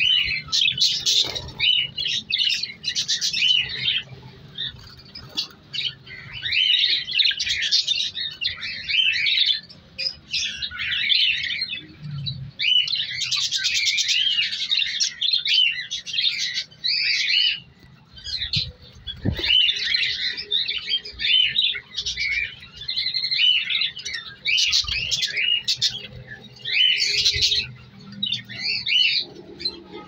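Flock of budgerigars chirping and chattering in a colony cage: quick high chirps come in bursts of a second or two, with short pauses between bursts.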